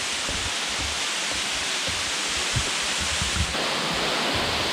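Waterfall rushing: a steady, even roar of falling water, with uneven low rumbles underneath.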